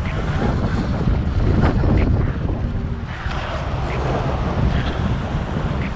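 Wind buffeting the microphone of a camera on a moving electric dirt bike, over steady road and traffic noise.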